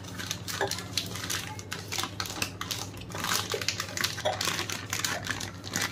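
Thin polythene milk pouch filled with batter crinkling and crackling as it is handled and gathered up, a rapid irregular run of small crackles.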